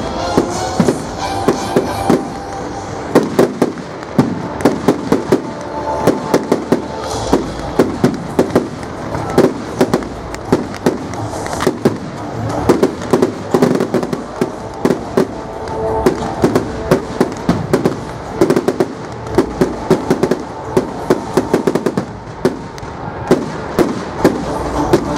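Fireworks display: a rapid, continuous barrage of sharp bangs and crackles from bursting shells, many reports a second at its busiest, over a dense rumbling bed of sound.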